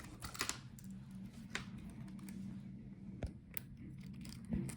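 Scattered light clicks and taps of small laptop parts being handled as the motherboard is lifted out of the chassis, over a low steady hum.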